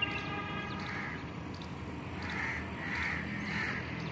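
Birds calling: one drawn-out, pitched call about a second long at the start, then several shorter, fainter calls, over steady outdoor background noise.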